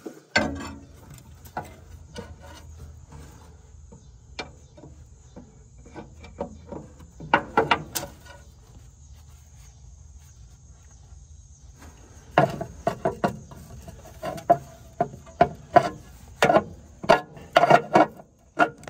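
Irregular metallic clicks, knocks and scraping of tools and jumper-cable clamps being worked onto a semi truck's starter terminals, with a quick flurry of clicks about halfway and a dense run of sharp clicks in the last third. A faint steady high-pitched tone runs underneath.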